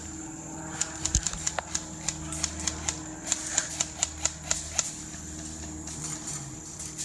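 Airsoft guns firing: a few dozen sharp, irregular shots clicking over about four seconds, then stopping. A steady high-pitched tone runs underneath.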